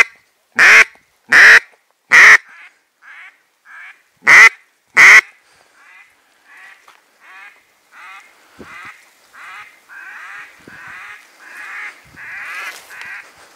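Duck quacking close by: six loud, harsh quacks in the first five seconds, then a long run of softer quacks at about two a second.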